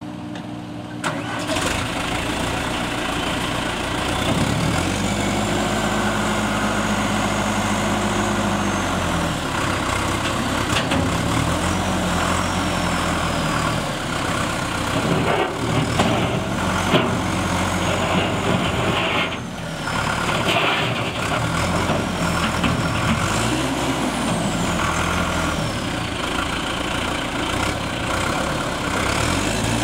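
John Deere 5603 tractor's diesel engine running, its speed rising and falling several times while the 542 front loader raises its bucket.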